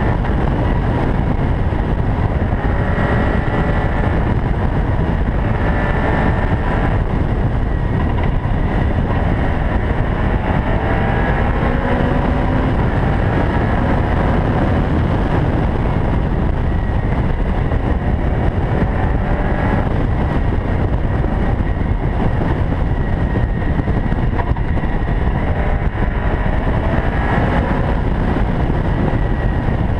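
Caterham R500 engine pulling hard at speed, its revs climbing and dropping again several times as it shifts gear, over a loud, steady rush of wind and road noise.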